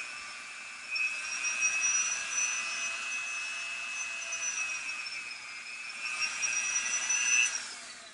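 Dremel rotary tool with an engraver's bit running at high speed, a steady high whine while cutting shallow arm sockets into a plastic figure. Its pitch dips briefly about two-thirds of the way in, and near the end it is switched off and winds down.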